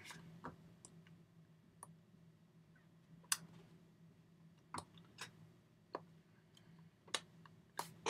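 Hands clapping and tapping against each other while signing, about ten sharp, irregularly spaced taps, the loudest a little past the middle. A faint steady low hum runs underneath.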